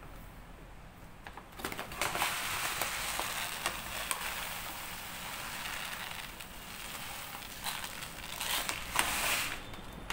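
Uncooked long-grain rice pouring from a bag into a large glass bowl: a steady rustling hiss of grains with fine clicks. It starts about a second and a half in and stops near the end.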